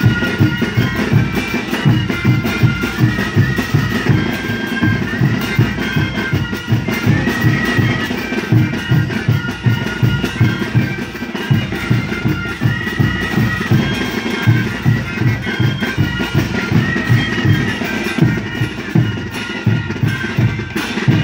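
Andean tarkada band playing: massed wooden duct flutes carry a sustained melody over a steady beat of bass drums, with snare drums and cymbals.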